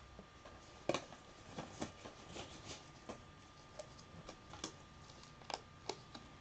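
Light, irregular clicks and taps of trading cards and their packaging being handled, the sharpest about a second in, over a faint steady high-pitched whine.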